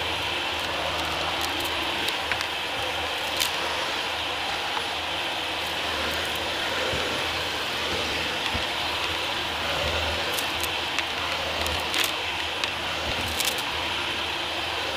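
Dyson DC40 upright vacuum running steadily with a high whirring motor, sucking up grit and crumbs from a tiled floor; a few sharp clicks and crackles, the clearest about three seconds in and twice near the end, as the debris goes up the cleaner head.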